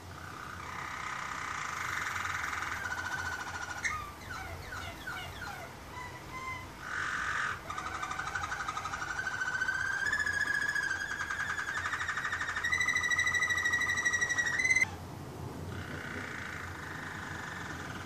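Waterslager canary singing in rapid, rolling trills between about 1 and 2 kHz. A long rolling phrase from about eight seconds in steps up in pitch, gets louder and breaks off abruptly a few seconds before the end, followed by a softer phrase.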